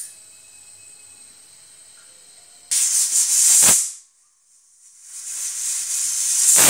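Aluminium pressure cooker whistling: a faint steady hiss, then the vent weight lifts and steam blasts out with a sudden loud hiss about three seconds in. It dies away after about a second, then swells again and keeps hissing loudly near the end. This first whistle marks full pressure, the signal to turn off the gas for the rice.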